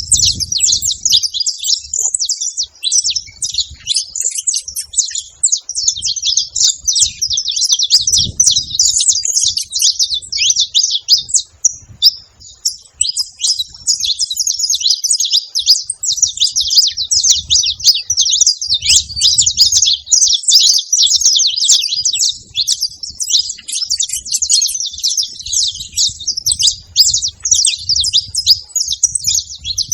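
Saffron finches chirping and singing together: a dense, unbroken chatter of high, quick notes that thins briefly about twelve seconds in.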